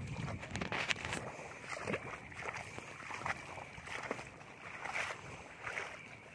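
Footsteps wading and squelching through a flooded rice paddy. The splashing strokes come irregularly, about one every half-second to second.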